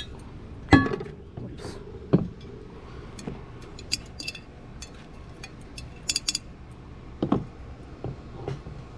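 Ceramic pottery being handled on a table: a pitcher and small ceramic pieces knocked and clinked as they are picked up and set down, a few separate sharp knocks with a quick run of three light clicks around two-thirds of the way through.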